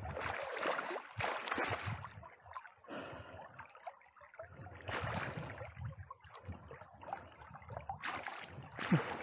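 Fast river water splashing and gurgling around a landing net held in the current, with several short louder bursts of splashing.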